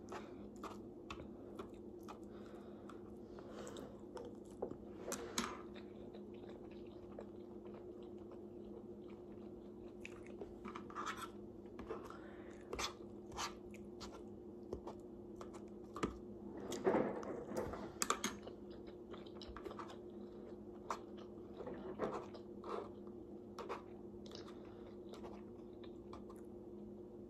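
A person chewing a breakfast of eggs and sausage close to the microphone: irregular soft clicks and crunches, loudest about seventeen seconds in, over a steady low hum.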